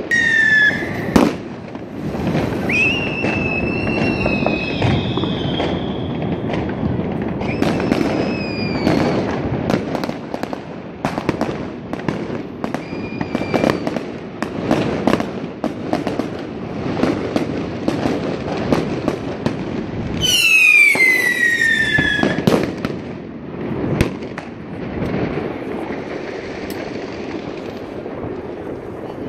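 Fireworks going off all around: a steady barrage of sharp bangs and crackles, with several whistling fireworks falling in pitch, the loudest whistle about twenty seconds in.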